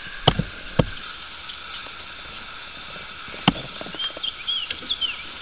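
A few sharp knocks of a fishing rod and gear being handled on a bass boat's deck: two close together at the start and one more past the middle. Near the end, small birds chirp several times over a steady outdoor background.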